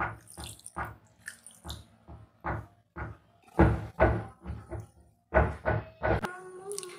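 Water poured into a pan of simmering eggplant curry, then a string of irregular knocks and clatters of cookware, loudest in the second half, with a short ringing tone near the end.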